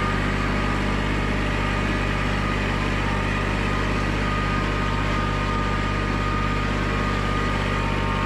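Orange compact tractor's diesel engine running steadily, heard from the operator's seat while driving, with a thin steady whine above the engine note.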